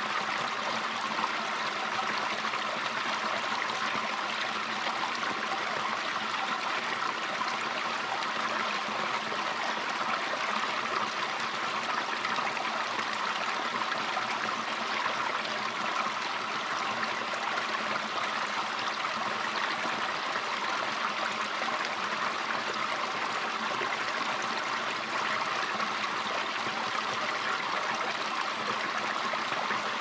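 Forest stream running, a steady, even babble of flowing water.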